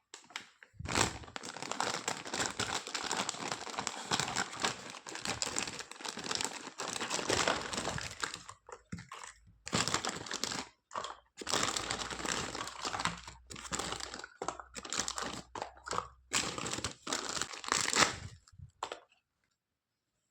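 Toy packaging being handled and unwrapped, crinkling and rustling in long stretches broken by short pauses.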